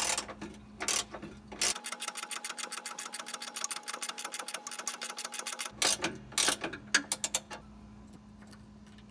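A 15 mm ratcheting wrench clicks rapidly and evenly for about four seconds as it turns the deck leveling adjuster counterclockwise to raise a John Deere 100 Series mower deck that sits too low. A few separate clicks and knocks come before and after the run.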